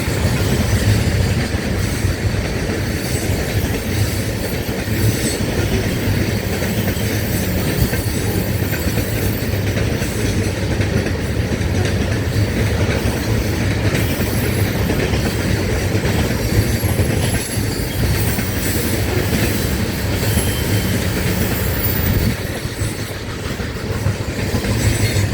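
A freight train of loaded tank cars rolling past at track speed, with a steady clatter of wheels over the rail and thin high-pitched wheel squeal now and then.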